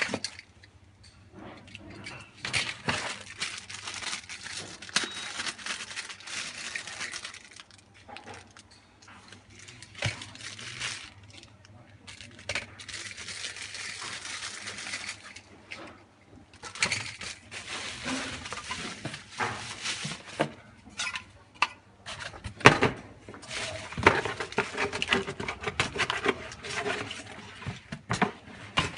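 Hands unpacking a boxed tuning kit: plastic bags rustling, cable harnesses and plug connectors clicking and clattering against each other and the cardboard box, with one sharp knock about two-thirds of the way through.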